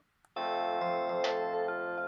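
Panasonic KX-PRS110 cordless phone playing a piano-like polyphonic ringtone melody. After a short silent gap with a faint click, the tune starts about a third of a second in and plays a phrase of several notes.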